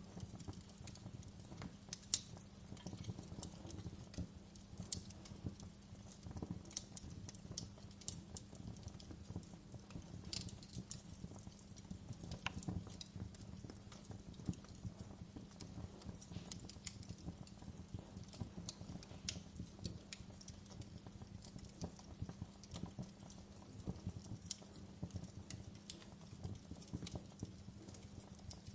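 Wood fire burning in a fireplace, crackling with irregular sharp pops and snaps over a low steady rumble of the flames. One pop about two seconds in is the loudest.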